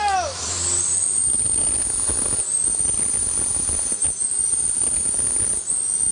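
Diesel engine of a loaded Mitsubishi Canter-type light dump truck running hard under load as the truck churns through deep mud, with a steady high whine above it.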